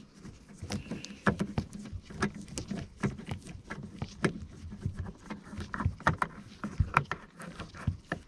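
Irregular small clicks and knocks of a metal T27 Torx key working a bolt down in a plastic door-card recess, several a second, as the bolt is turned and tightened by hand.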